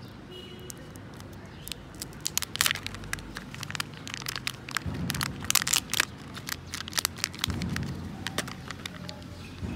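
Thin plastic crackling and crinkling as the sealed lid is peeled off a Kinder Joy egg half and the lid and plastic shell are handled, with many sharp clicks.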